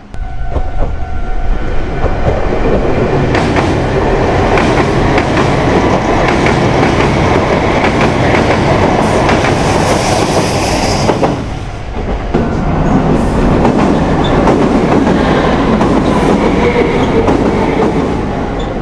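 A passenger train running over a level crossing and steel girder bridges, with a loud rumble and the wheels clattering over the rail joints. The noise dips briefly about twelve seconds in, then builds again.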